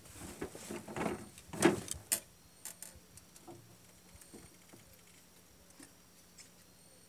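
Knocks and bumps on an aluminium boat as a man steps down and sits in his seat, with a few loud thumps in the first two seconds. Then scattered small clicks and ticks.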